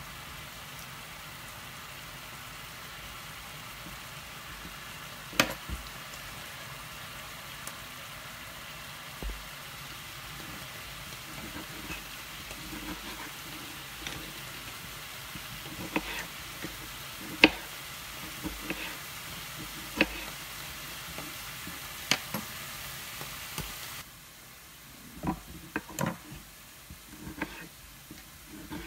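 Steady sizzle of frozen mushrooms cooking off their water in a pan, which cuts out about 24 s in. Over it, a kitchen knife taps sharply now and then on a bamboo cutting board as tomatoes are cored and cut, with a quicker run of chops near the end.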